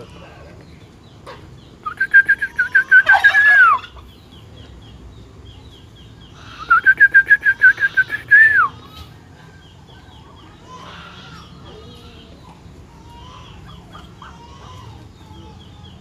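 Domestic fowl calling loudly twice, each call about two seconds long. Each call is held at one pitch with a fast pulsing and drops away at the end. Faint high chirping from other poultry runs underneath.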